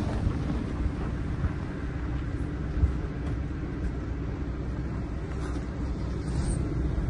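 Steady low outdoor rumble of wind buffeting a phone's microphone, with a short low knock about three seconds in.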